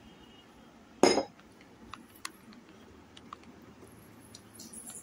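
Crockery clinking sharply once against a dinner plate about a second in, as fish curry is served onto it. A few faint light clicks of dishes follow.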